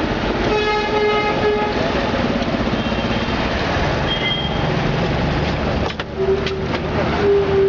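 Busy street traffic noise with a vehicle horn sounding for about a second near the start, and shorter horn toots near the end.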